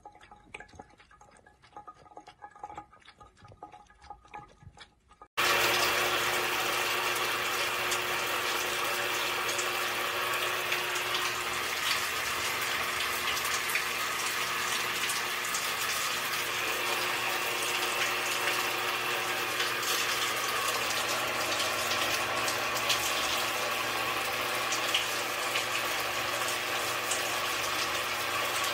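A thin trickle from a bathroom tap runs quietly; about five seconds in it gives way abruptly to the steady, loud hiss of an overhead rain shower head spraying water.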